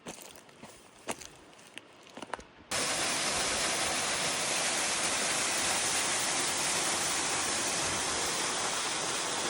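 Footsteps on rock for a couple of seconds, then a sudden switch to the loud, steady rush of a waterfall pouring into a rock pool close by.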